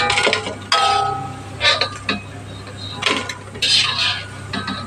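Slotted metal spatula scraping and clanking against a stainless-steel wok and a wire mesh strainer, several short ringing clinks, as fried cauliflower pieces are scooped out of the oil. A steady low hum runs underneath.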